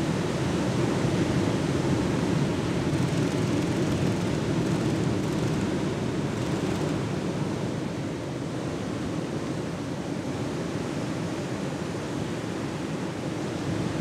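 Ocean surf breaking and washing on the shore: a steady, even rush of noise, heaviest in the low range, easing slightly in the second half.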